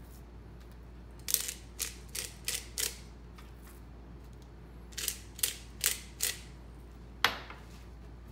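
Hand-twisted pepper mill cracking peppercorns: a run of sharp ratcheting clicks about a second in, a second run about five seconds in, and one last click near the end.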